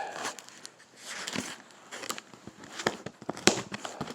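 Scattered light clicks and crinkling of packaging being handled.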